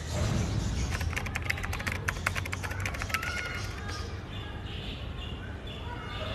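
A rapid run of typewriter-style clicks lasting about two seconds, as on-screen caption text is typed out, over a low rumble.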